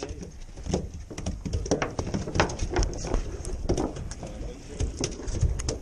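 Irregular clicks and knocks from a fishing rod and reel being handled close to the microphone, over a steady low rumble.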